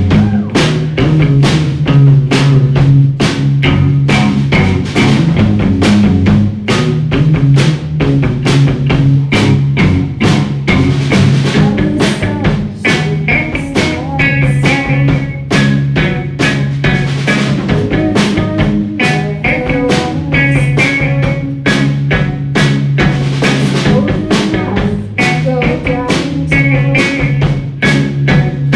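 A rock band playing live: a drum kit keeps a steady beat under sustained electric bass notes and electric guitar.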